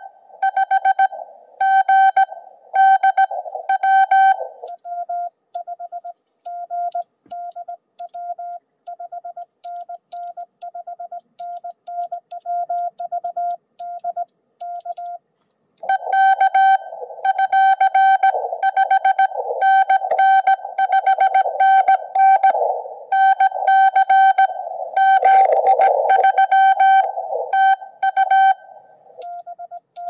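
Morse code (CW) tones from a portable amateur radio transceiver: two signals at slightly different pitches take turns, as in a contact exchange. The higher one comes with band hiss and a brief burst of static about 25 seconds in; the lower one, clean, keys from about 5 to 15 seconds in and again at the very end.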